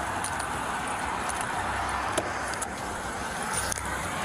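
Steady traffic and engine noise, with a few small clicks and rustles from gear handled close to the microphone.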